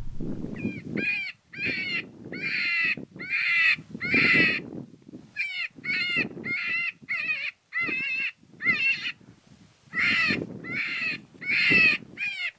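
Predator call playing a raspy, wavering distress cry in short repeated calls, about two a second, in three runs with brief pauses between them.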